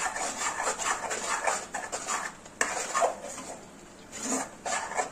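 Steel ladle stirring and scraping thick, spiced tomato masala paste in a metal pan, in runs of quick scraping strokes with a short lull a little past halfway.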